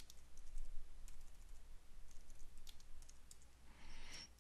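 Computer keyboard keys clicking in an irregular run of keystrokes as a line of code is typed, with a brief soft hiss near the end.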